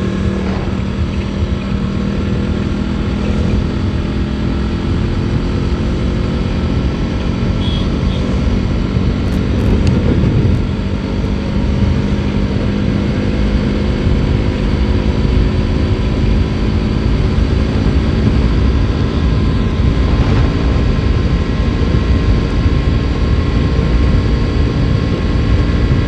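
A sport motorcycle's engine cruising steadily at about 55 to 70 km/h, heard from the rider's seat under heavy wind noise on the microphone. The level lifts slightly about ten seconds in.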